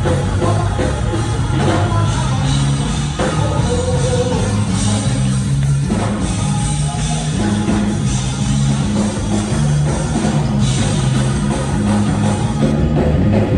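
Loud up-tempo gospel praise music with a drum kit and a moving bass line, playing without a break.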